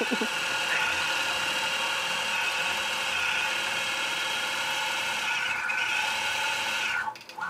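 Gammill Statler longarm quilting machine stitching on its own: a steady motor whir with a high, even whine. It dips briefly near the end.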